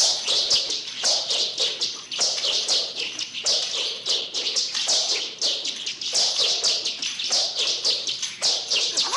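Nunchaku whirling through the air: quick runs of high whistling swishes, several a second, broken by short pauses.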